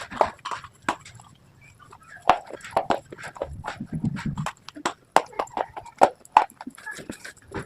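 Crunchy slate and baked clay pieces being bitten and chewed close to the microphone: an irregular run of sharp cracks and crunches, with a brief low muffled sound about four seconds in.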